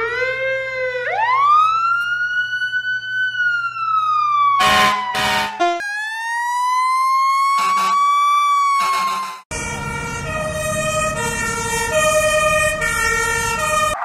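Fire truck siren sound effects: a siren wail that rises and slowly falls, twice, broken each time by several short horn blasts. From about ten seconds in, a two-tone siren alternates steadily between a high and a low note.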